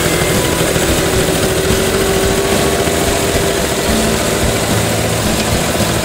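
Small vintage tractor's engine running steadily, close by, as it pulls a plough.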